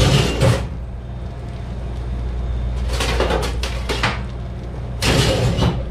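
Metal kitchen utensils clattering as a stainless steel drawer is opened and rummaged through for tongs. The clatter comes in three bursts: at the start, about three seconds in, and near the end. A steady low hum runs underneath.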